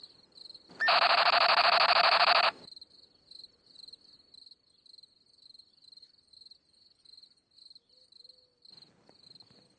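Crickets chirping, a thin high chirp about twice a second. About a second in, a loud harsh buzz sounds for nearly two seconds and cuts off.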